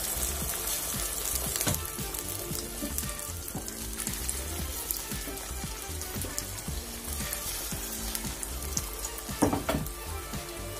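Egg omelette batter frying in hot refined oil in a nonstick kadai over a low flame, a steady light sizzle. A brief thump near the end.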